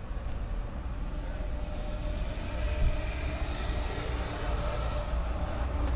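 A distant engine drone that swells in the middle and eases off toward the end, with a low wind rumble on the microphone.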